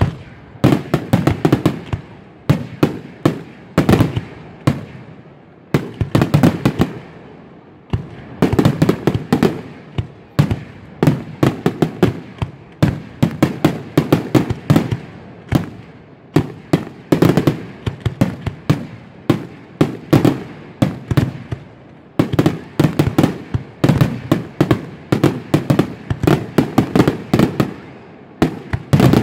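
Aerial fireworks shells bursting in rapid volleys: many sharp bangs in quick clusters, with brief lulls between them.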